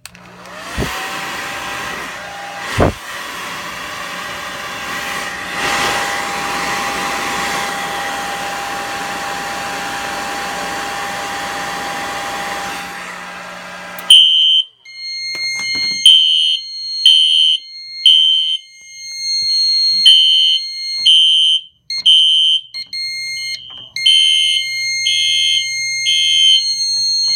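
A hair dryer switches on and runs with a steady whine, heating a fire alarm heat detector, with a knock a couple of seconds in. It stops, and moments later the fire alarm horn sounds: a loud, high-pitched electronic tone pulsing in groups of three, the temporal-3 evacuation pattern, signalling that the heat detector has tripped the system into alarm.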